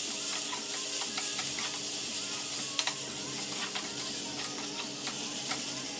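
Vegetable stuffing of shredded cabbage, onion, capsicum and tomato frying in a kadai, a steady sizzle, while a steel spatula stirs it with scattered light scrapes and taps against the pan.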